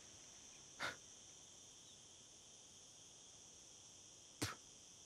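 Faint, steady insect chorus of crickets in open scrubland, a high-pitched hum without pause. Two short sharp sounds cut through it, one about a second in and a louder one near the end.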